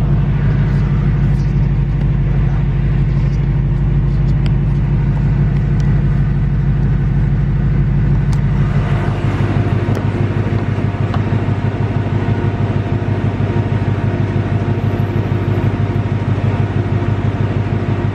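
2018–2019 Ford Mustang GT's 5.0 Coyote V8 running, its note changing about halfway through. It is presented as carrying the ticking that owners call the "BBQ tick" or typewriter noise, which the owner takes for an engine fault and says does not come from the direct injection.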